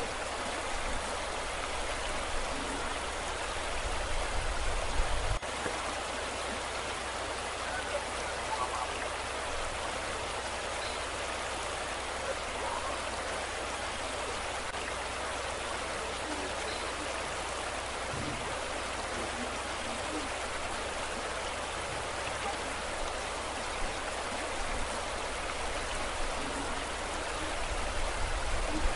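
Steady rushing noise of a column of muddy floodwater gushing down into a flooded gully. Brief low rumbles come through around five seconds in and again near the end.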